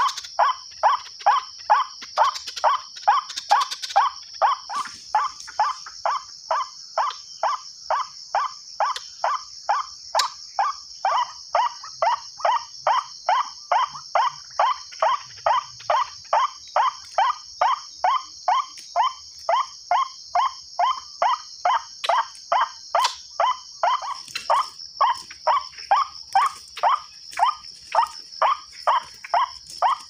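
White-breasted waterhen (ruak-ruak) call played back through a small horn loudspeaker as a trapping lure: an unbroken run of short croaking notes, about two a second. The speaker's sound is starting to weaken. Behind it runs a steady high buzz.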